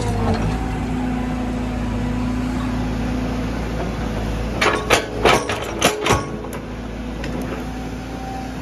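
Tracked hydraulic excavator's diesel engine running steadily. About halfway through comes a quick run of five or six sharp knocks and clanks as the bucket digs against a tree stump in the soil.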